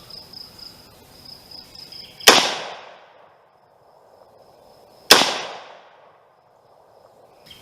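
Two rifle shots from a homebuilt AR-15 in .223/5.56, about three seconds apart, each a sharp crack with a short echoing tail. Crickets keep up a steady high trill in the first two seconds.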